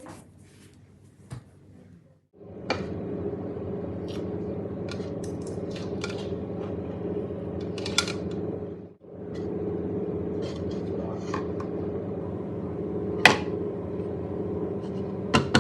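A steady machine hum starts about two seconds in, breaks off briefly midway, then resumes, with occasional sharp clinks and clicks over it.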